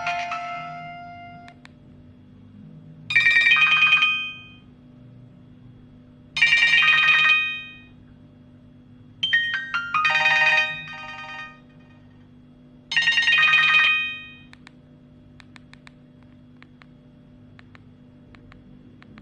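Nokia 105 (2013) phone's loudspeaker playing its electronic tones. A melody fades out in the first second and a half, then four short bright tones follow with pauses of about two seconds between them; the third is a double. Faint clicks follow near the end.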